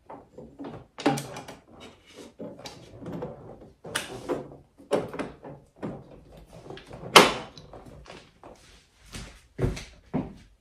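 Irregular clicks, clanks and knocks of metal parts being handled as a toothed drive belt and pulley are fitted onto a snow-bike jackshaft, with one sharper, louder knock about seven seconds in.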